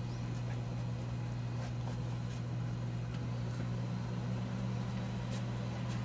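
Electric fan motor humming steadily.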